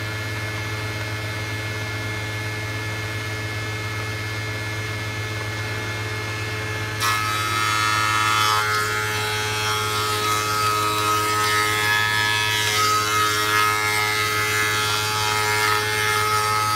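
Co-Matic power feeder and the woodworking machine beneath it running with a steady electric hum. About seven seconds in, a louder rushing cutting noise joins as a board is fed through under the feeder's rollers.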